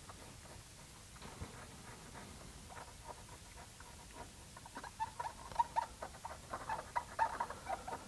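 Cotton swab wet with alcohol scrubbing around the pins of a surface-mount microprocessor on a circuit board, cleaning off the excess solder flux: faint, squeaky scratching. It is sparse at first and turns into a quick run of short squeaks from about halfway through.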